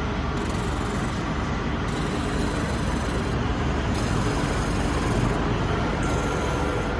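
Machinery of a chalk-block polishing line running with a steady, even noise.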